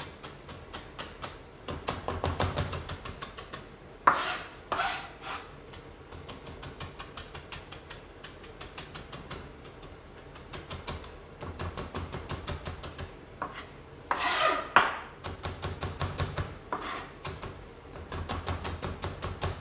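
Chef's knife rapidly chopping parsley finely on a plastic cutting board, a quick, even run of light chops. A few short, louder scrapes of the blade on the board come in between.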